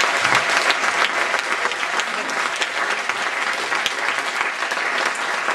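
Audience applauding steadily: a dense patter of many hands clapping that eases slightly near the end.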